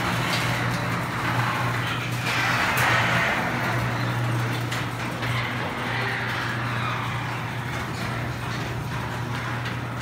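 Craftsman 139.53985DM garage door opener running as it closes a sectional garage door: a steady motor hum under the noisy rush of the door rolling along its tracks.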